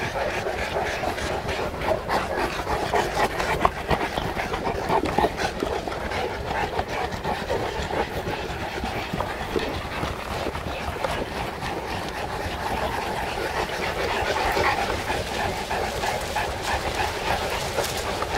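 Several Saint Bernards panting and moving through forest undergrowth: a steady dense rustle with many small clicks and scuffs.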